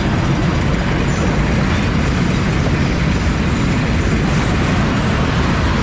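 Potato unloading machine with its conveyor belts running steadily: a loud, even mechanical rumble with hiss.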